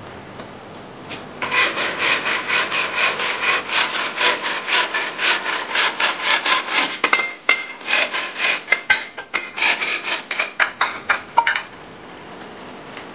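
Hand saw cutting through a fresh green bamboo pole in rapid back-and-forth rasping strokes, about three to four a second, with a few sharp clicks in the middle. The strokes start about a second and a half in and stop near the end.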